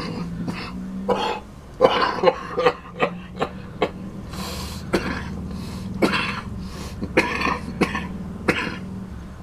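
A man coughing and clearing his throat in a string of short, sharp coughs, about a dozen over several seconds, his throat burning from a mouthful heavy with wasabi.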